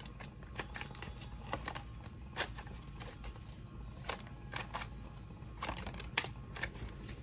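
A deck of tarot cards being shuffled and handled: soft, irregular clicks and taps of cards against one another over a faint low room hum.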